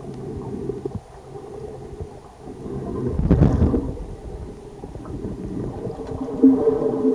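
Muffled underwater rumble of water moving around a submerged camera, with a steady low hum underneath. The rumble swells into a louder rush about three seconds in.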